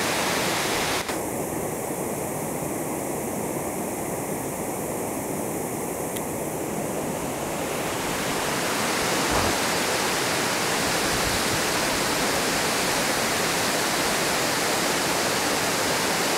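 Steady rush of water pouring over an old mill dam spillway, with a brief click about a second in.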